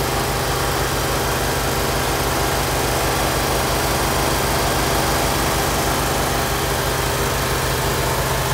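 Gasoline engines of a trailer-mounted pressure washer rig running steadily at an even speed. The rig is a PWP 500 that drives a 15 gpm pump.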